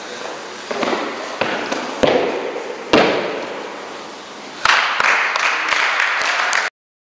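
Gymnast's feet striking a sprung gymnastics floor during a tumbling pass: four hard, echoing thuds over about three seconds. About four and a half seconds in, applause breaks out and stops suddenly near the end.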